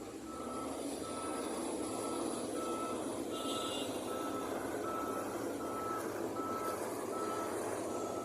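Heavy construction vehicle's reversing alarm beeping at one steady pitch, about one and a half beeps a second, over the steady noise of a running diesel engine.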